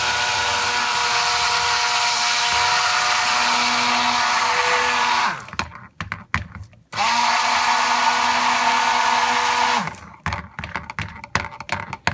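Stick blender mixing lye water into soap oils toward emulsification and trace, running in two steady bursts, one about five seconds and one about three, with short knocks between them and after.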